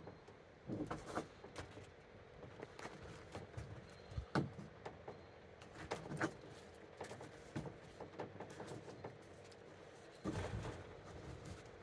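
Scattered light knocks, taps and handling noises from hands working on the plastic roof box, the sharpest about four seconds and six seconds in and a heavier thump near the end, over a faint steady hum.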